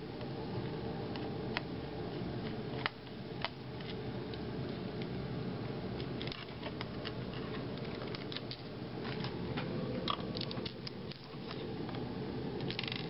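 A screwdriver working the small screws on the underside of a laptop: scattered light clicks and scrapes of metal on screw heads and plastic, more of them in the second half, over a steady low hum.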